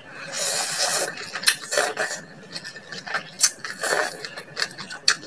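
A person eating water spinach (kangkong) in coconut milk close to the microphone: a slurp about half a second in, then crisp crunching and smacking clicks as she chews the stalks.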